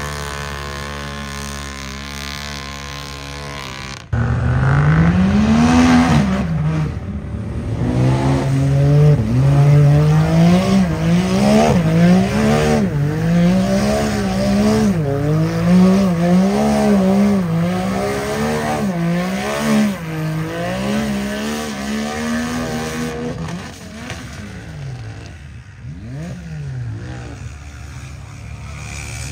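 Mud bog truck engine revving hard up and down, about once a second, as the throttle is worked through a mud hole, then easing off and fading near the end. Before it, a steady engine drone cuts off abruptly about four seconds in.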